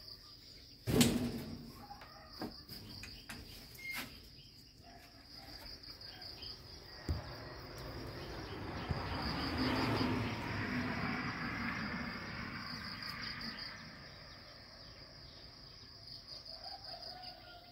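Insects chirping steadily in a fast, even pulse, with a thump about a second in and a broad rush of noise that swells and fades in the middle.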